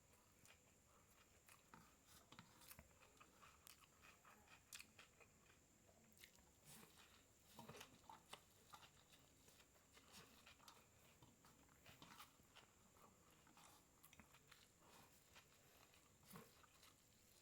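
Faint chewing and mouth sounds of a person eating vegetable noodles: irregular soft smacks and clicks, a few a second, with no drink taken between mouthfuls.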